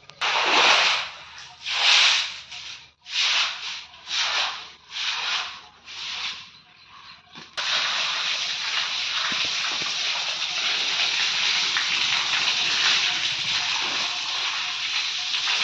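Stiff stick broom scrubbing a wet brick floor in separate strokes, about one a second. About halfway it gives way to water from a hose gushing steadily onto the floor.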